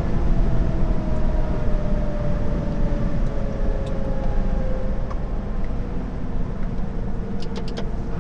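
Steady engine and road rumble heard inside a moving lorry's cab, with a faint whine sliding slowly down in pitch over the first few seconds. A quick run of four faint ticks comes near the end.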